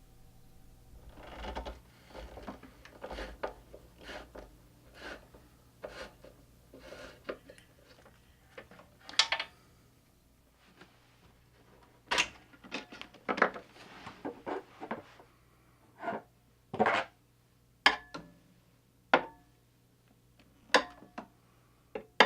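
Tools and hardware being handled: a string of irregular knocks, clicks and scrapes, turning into about a dozen louder, sharp clacks in the second half, over a faint steady hum.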